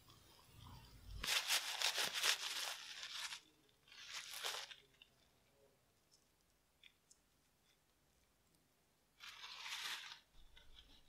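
Scratchy, crackly rustling heard three times: a long spell about a second in, a short one near four seconds, and another near the end.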